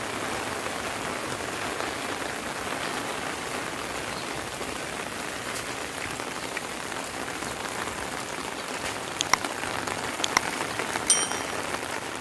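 Heavy rain falling steadily, a dense even hiss. Near the end come a few sharp drip-like taps, one of them with a brief ringing ping.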